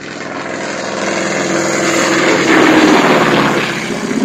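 Stearman biplane's radial engine and propeller in a low flyby, growing louder to a peak about three seconds in, then its pitch dropping slightly as it passes overhead.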